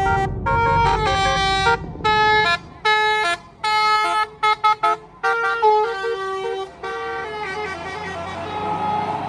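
Tour bus's 'telolet' Basuri musical horn playing a tune: held notes that step from pitch to pitch, broken by gaps, with a quick run of short toots about four to five seconds in. Near the end the horn fades into the rising noise of the bus going past.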